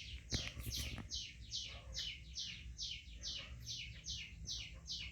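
A bird chirping over and over: a short, high, falling chirp about two and a half times a second. There is a brief knock about half a second in.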